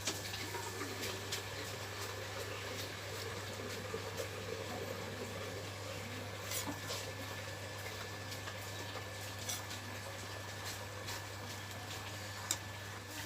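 A person chewing puffed rice (muri) with chicken: irregular small crunches and clicks of mouth and food sounds.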